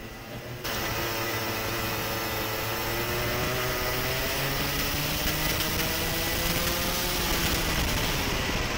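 Racing kart engine heard from an onboard camera on the kart, running at speed with its pitch slowly rising and easing off, over a steady hiss. The sound jumps louder about half a second in.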